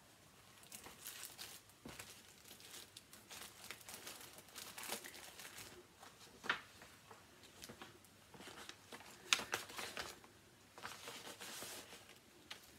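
Rustling and crinkling of bags and packaging being handled and rummaged through, with a couple of sharper clicks partway through.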